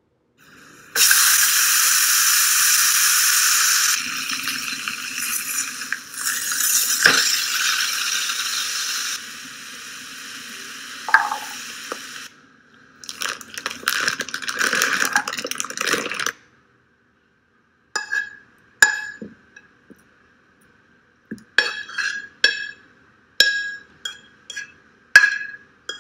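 Steak searing in a hot nonstick frying pan: a loud sizzle starts about a second in and shifts in level several times, then a shorter sizzle as broccoli goes into the pan. From about 18 s comes a run of about a dozen sharp, ringing clinks as the pan and utensils meet the plate while the food is served.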